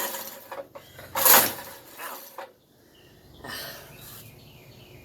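A few short scraping and clunking handling noises, the loudest about a second in, with no engine running.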